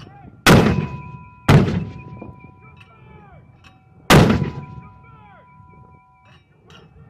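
Vehicle-mounted 81 mm mortars firing: three sharp reports, about half a second in, a second later and about four seconds in, each trailing off in a rolling echo.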